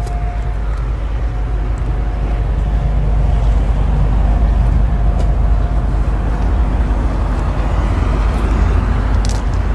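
Steady low rumble of outdoor background noise, swelling a little after a few seconds, with a faint steady tone in the first half.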